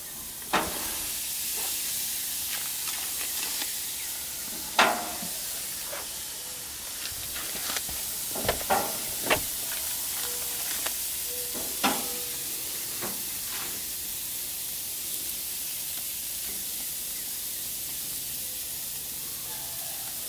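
Raw hamburger patties sizzling on a hot gas grill's grate, a steady hiss. A handful of short knocks come in the first thirteen seconds or so as more patties are laid down.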